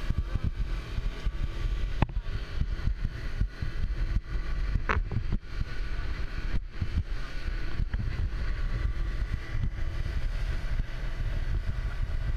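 Honda 135 outboard motor running at cruising speed, with the hull knocking repeatedly on the chop and wind buffeting the microphone.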